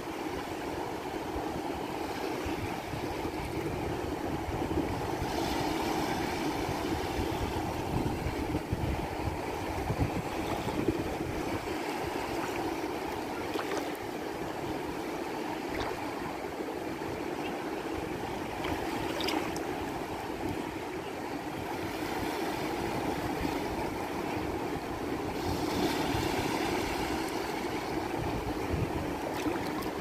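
Small waves of the shallow Azov Sea washing and breaking in the shallows: a steady rushing surf noise with an uneven low rumble beneath it.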